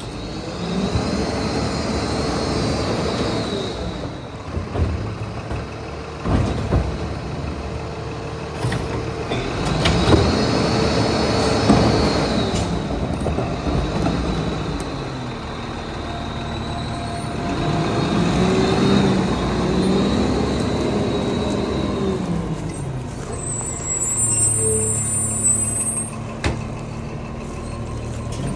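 Lodal EVO MSL garbage truck's engine revving up and settling back three times as its hydraulic packer cycles, with sharp clanks of carts being tipped into the side hopper in between.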